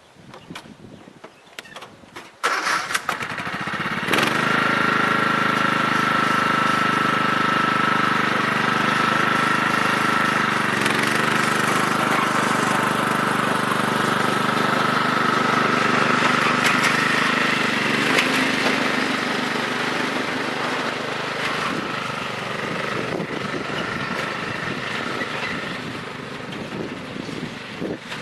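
Craftsman riding mower's 15 hp Kohler Command OHV engine starting about two and a half seconds in, then running steadily, with a steady high whine over the engine note.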